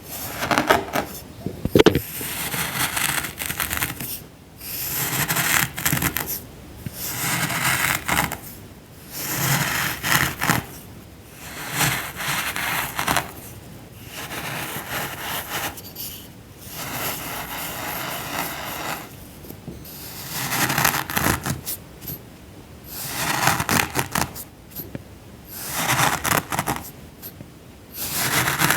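Packed sand being cut and crumbled with a tool, recorded close up: a series of crisp, crunchy crackling strokes, about one every two seconds, with short pauses between.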